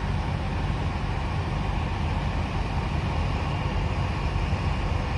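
Steady low rumble of idling diesel semi-trucks, even throughout with no distinct events.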